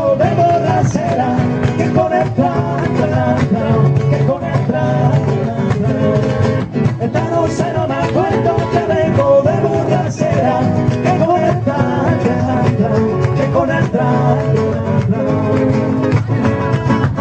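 Flamenco music from a live band, with guitar playing and many short sharp percussive strikes through it.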